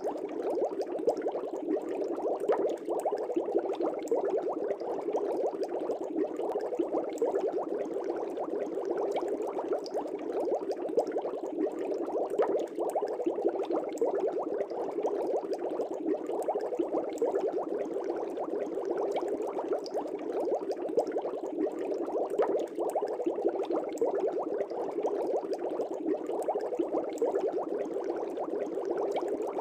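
Aquarium air bubbles rising and bursting at the water surface in a continuous dense bubbling, with many small pops.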